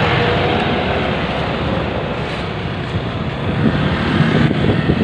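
Wind rushing over the microphone of a moving motorcycle, mixed with its engine and road noise. The low buffeting grows heavier and louder about three and a half seconds in.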